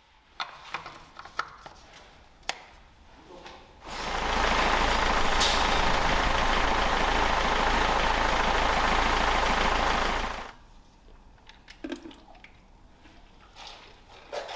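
Car diesel engine running steadily at idle on flushing oil, to clean out the lubrication system. It starts about 4 seconds in, runs for about six seconds and cuts off suddenly.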